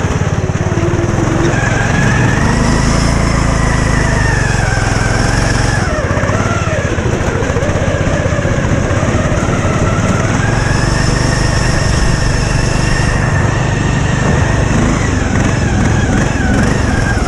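Riding lawn mower engine running hard, its speed rising and falling: it revs up about two seconds in, eases off near six seconds, and revs up again from about ten to thirteen seconds.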